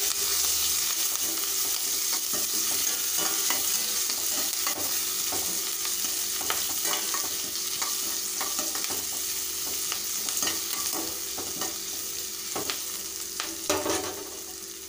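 Chopped onions, curry leaves, urad dal and dried chillies sizzling in hot oil in a stainless steel kadai, the steady sizzle slowly getting quieter. A steel ladle scrapes and clinks against the pan now and then as it stirs, most loudly near the end.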